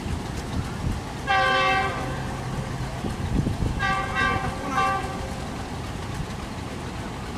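Locomotive horn sounding three times: a blast of about half a second about a second in, then a longer blast and a short one about four seconds in. A low rumble runs underneath.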